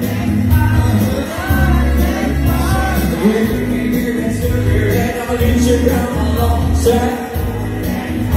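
Karaoke: a woman singing into a microphone over a loud backing track with a deep bass beat, both played through the PA speakers.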